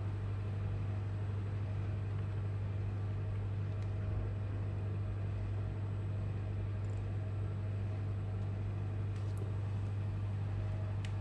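A steady low hum over a faint even hiss, with a few faint clicks.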